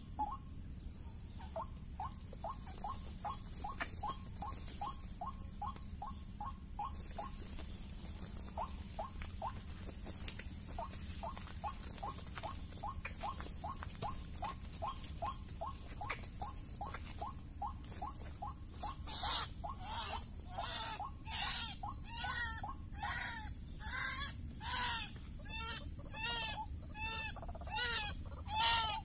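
White-breasted waterhen (ruak-ruak) calls, the lure call used for trapping: a long run of short low notes, about three a second, then from about two-thirds of the way through, louder harsh 'kruak' calls about one and a half a second. A thin, steady high tone sounds behind them.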